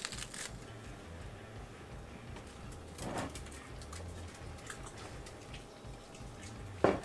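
Quiet food-handling noises: lettuce rustling at the start, then short spluttering squirts from a squeeze bottle of mayonnaise about three seconds in and again, sharpest and loudest, near the end.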